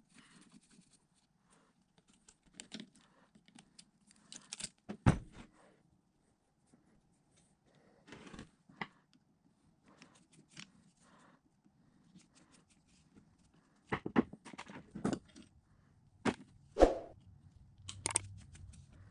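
Screwdriver and hand work on a vintage electric motor: scattered clicks, scrapes and metallic knocks of the tool against the motor housing and loose parts. There is a sharp knock about five seconds in and a run of knocks near the end.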